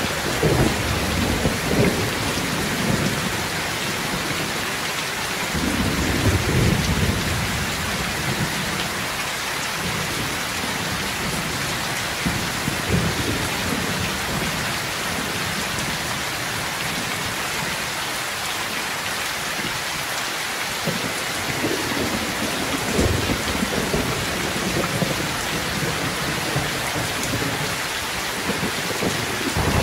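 Heavy rain pouring steadily, with low thunder rumbling several times: near the start, around six seconds in, about halfway through, and again near the end.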